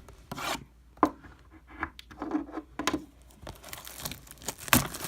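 Packaging of a trading-card blaster box being torn open by hand: irregular bursts of tearing and crinkling, with a few sharp snaps.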